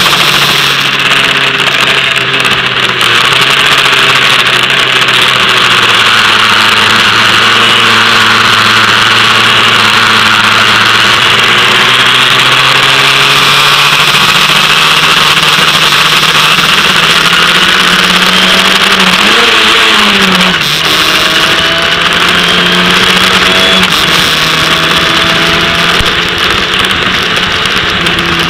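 Formula Ford racing car's four-cylinder engine running at speed, heard from on board. Its pitch sags slowly for about twelve seconds, then climbs, with a quick dip and rise about twenty seconds in, over a steady hiss.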